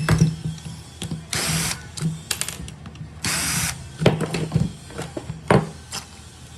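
A small power tool, drill-like, runs in two short bursts of about half a second each. Sharp clicks and knocks of tools and parts being handled come between the bursts.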